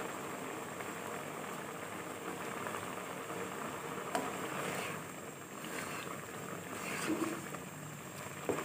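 Minced beef in watery tomato and onion masala boiling hard in a pot, a steady bubbling as the water is cooked off. In the second half a spatula stirs it, with a few sharp clicks of the spatula against the pot.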